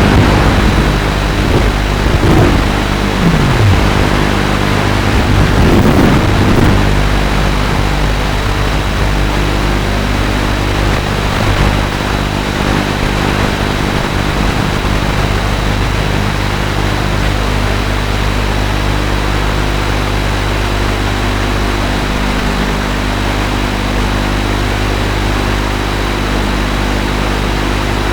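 FPV quadcopter's motors and propellers running as a whining hum over a hiss. Its pitch glides up and down a few times in the first seven seconds, then holds steady.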